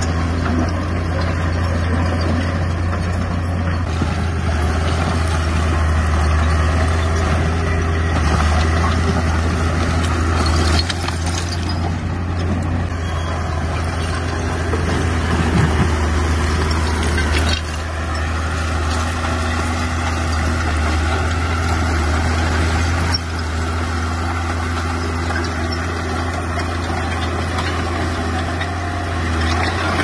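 Small crawler bulldozer's diesel engine running steadily under load as the machine pushes dirt, with a deep, continuous hum. The sound shifts abruptly a few times partway through.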